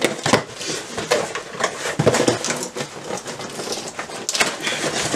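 A cardboard parcel box being opened and its packed contents handled: rustling with many small clicks and knocks.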